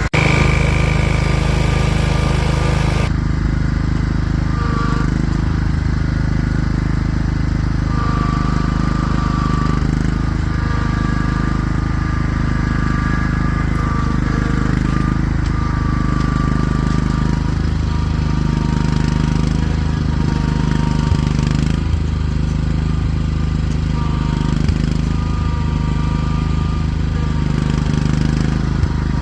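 Lawnmower engine running steadily at idle while still cold, its badly clogged air filter restricting the air like a choke.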